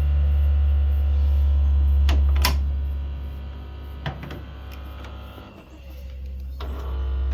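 A loud, steady low hum that fades down in the middle and swells back near the end, with a few sharp clicks over it.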